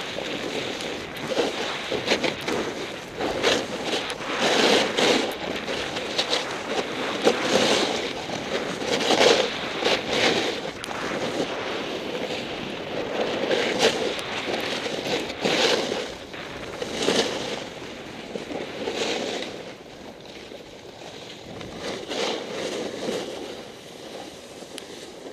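Snowboard edges scraping over packed snow through a run of turns, each turn a surge of hissing scrape every second or two, mixed with wind on the microphone. It grows quieter in the last few seconds as the board slows.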